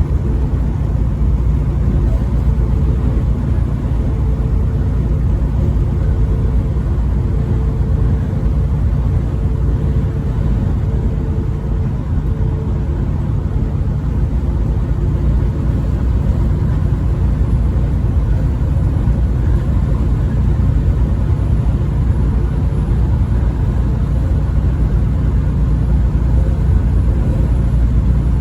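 Steady low rumble of a vehicle travelling at highway speed: engine and road noise.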